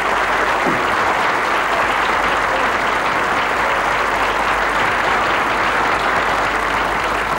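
Studio audience applauding: steady, dense clapping with no breaks.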